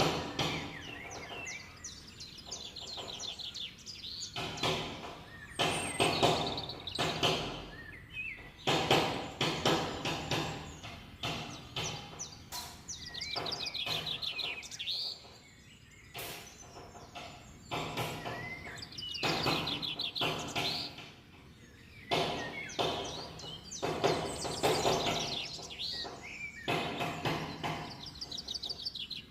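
A songbird singing repeated fast, high trilled phrases every few seconds, with frequent sharp knocks and clicks.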